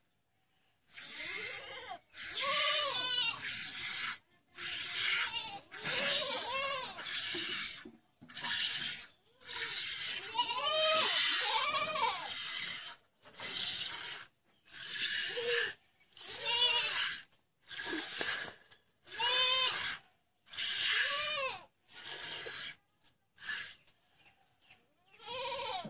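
Goat bleating over and over, a long run of short and longer bleats, each rising then falling in pitch, with brief pauses between them.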